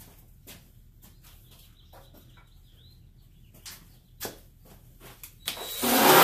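Light clicks and taps of a small right-angle disc sander being handled, with a faint high chirping in the middle. Near the end the sander spins up and runs loud against the door's sheet-metal edge where the patch panel is welded.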